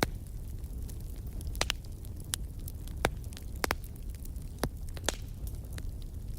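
Wood fire crackling in a fireplace: irregular sharp pops and snaps of the burning logs over a steady low rumble, with the strongest pops right at the start and about three seconds in.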